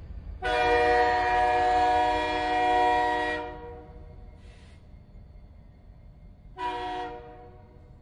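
Train horn sounding a chord of several steady tones: one long blast of about three seconds, then a short blast near the end.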